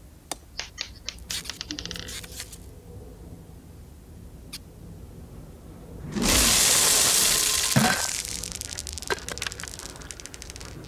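Cartoon sound effects: a few light clicks of single berries dropping, then, about six seconds in, a sudden rush as a mass of small red berries pours down and piles up. A hollow thunk of a pot landing comes near eight seconds, and the patter of scattering berries trails off.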